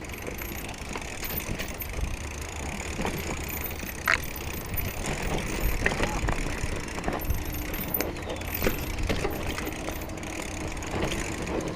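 Mountain bike descending a rough, rutted dirt trail: tyres crunching over ground, with the chain and frame rattling and clicking over the bumps.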